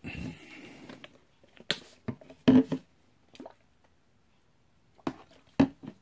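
Handling noise from a power-window switch's circuit board and its small plastic and metal parts being picked up and set down on a desk: a handful of short, sharp knocks and clicks, the loudest about halfway through, with a soft rustle in the first second.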